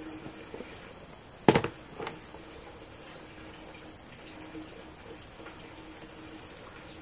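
Steady high-pitched insect chorus, with a sharp knock about one and a half seconds in and a fainter one half a second later.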